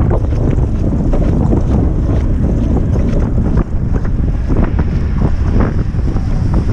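Wind blowing across a GoPro's microphone on a moving cargo bike: a loud, low rumble with irregular gusty surges.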